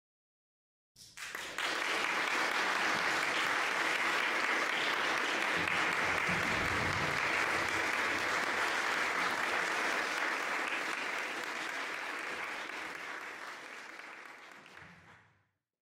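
Concert audience applauding. The applause starts about a second in, holds steady, then fades out near the end.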